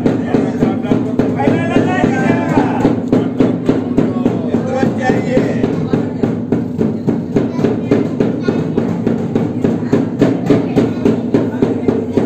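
Dhol, a double-headed barrel drum, beaten with a stick in a fast, steady rhythm of about four strokes a second. Voices chant over it in the first half.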